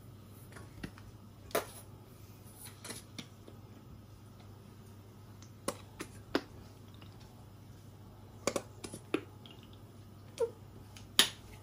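Plastic squeeze bottle being squeezed over a sandwich: about a dozen short, sharp squirts and clicks, scattered irregularly, the loudest near the end, over a faint low hum.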